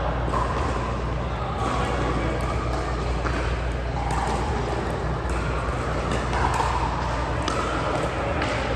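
Background chatter in a large room over a steady low hum, with a few sharp knocks at irregular intervals.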